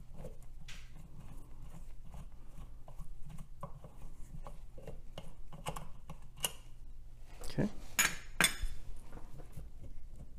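Small metallic clicks and rattles from a wing nut being worked off the stud that holds an old cast-metal desk fan motor to its base. About eight seconds in there is a louder burst of metal scraping and clinking as the motor is lifted off the base.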